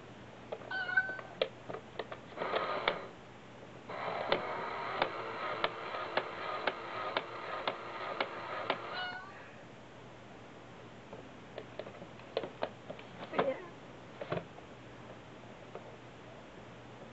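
A battery-powered cat coin bank set off by cats' paws: its toy meow sound plays, briefly twice and then for about five seconds, over sharp clicks and taps of paws and the bank's lid.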